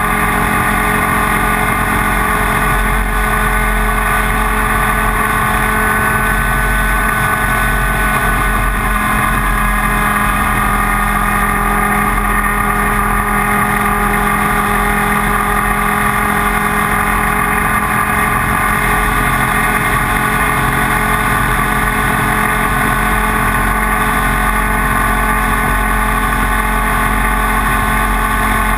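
IAME Leopard 125cc two-stroke kart engine running hard, a loud, even drone whose pitch holds nearly steady.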